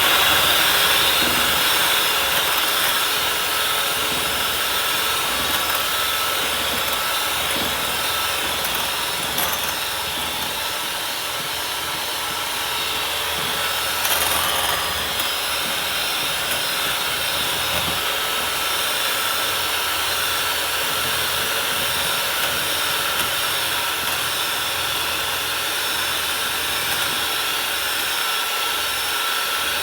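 Electric hand mixer running steadily at constant speed, beating cake batter of eggs, baking powder and vegetable oil.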